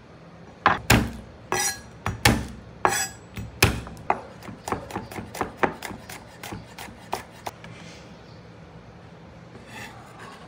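Knife chopping food on a cutting board: a run of sharp strokes, the first few heavier and about half a second apart, then lighter, quicker strokes that stop about three-quarters of the way through.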